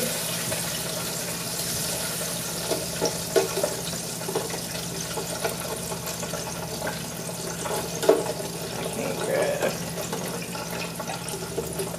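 Breaded catfish sizzling steadily in the hot oil of a countertop electric deep fryer, with scattered light clicks of metal tongs against the wire fry basket as the pieces are turned.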